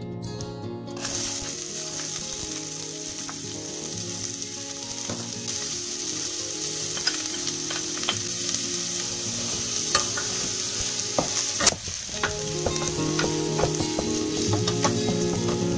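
Diced onion frying in hot oil in a stainless steel saucepan, sizzling steadily from about a second in. A wooden spoon stirs it, with small knocks against the pan and one sharper knock near the end.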